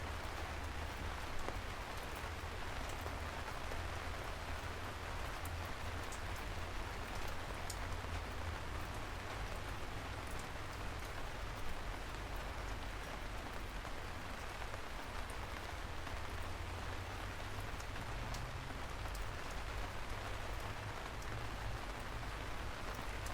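Steady rain falling, with individual drops ticking now and then over the even patter.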